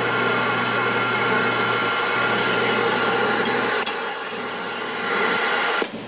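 Static hissing from a Galaxy CB radio's speaker between transmissions: a steady rushing noise with faint whistling tones in it and a few clicks about halfway through. It cuts off abruptly near the end.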